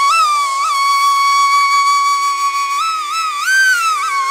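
Background music: a solo flute holds one long high note, with small bends and a short ornamented run about three seconds in, over a faint steady drone.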